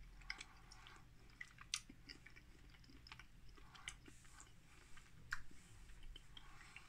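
Faint chewing of a mouthful of chocolate bar with bits of crisp in it, with scattered small clicks and soft crunches from the mouth.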